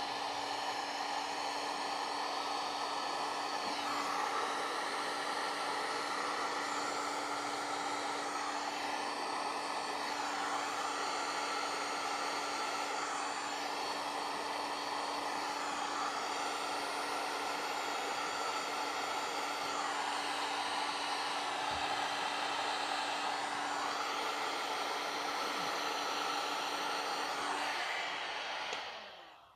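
Electric heat gun blowing steadily, with a constant motor hum, as it shrinks heat-shrink tubing over soldered wire splices. It switches off near the end and the sound dies away.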